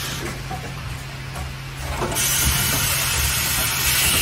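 Automatic plastic water-tap assembly machine running: a steady low hum with light mechanical clicks, and a hiss that comes up about two seconds in.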